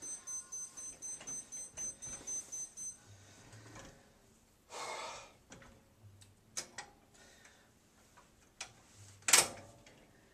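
Electronic timer beeping rapidly, about four high beeps a second, stopping about three seconds in. Then a few clicks and a short rustle, and one loud sharp clank near the end as the weight machine's lever is adjusted.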